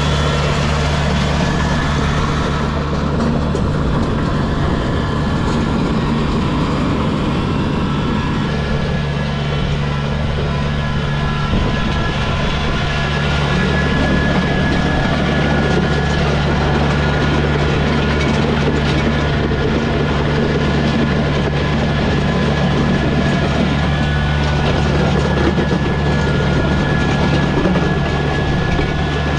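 Kubota BX23S subcompact tractor's three-cylinder diesel running steadily under load while a 60-inch land plane drags behind it, scraping and churning through loose gravel.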